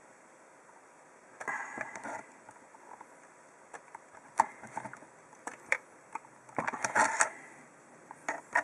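Scattered clicks, taps and light rattles of hands handling the opened electric three-hole punch's mechanism as a bent part is pushed back into shape, busiest about seven seconds in.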